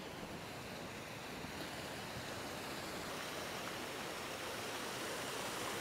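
Steady rush of water pouring through leaking lock gates into the lock chamber, growing slightly louder.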